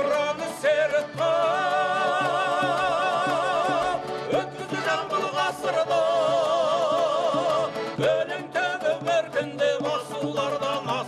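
Kazakh folk song with singing: voices hold long notes with a wide vibrato, twice for a few seconds each, over instrumental accompaniment with a steady beat.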